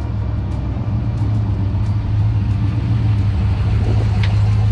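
Fuel-injected 383 cubic inch V8 crate engine of a 1968 Chevrolet K10 pickup running steadily as the truck drives slowly, a strong low engine note that gets slightly louder.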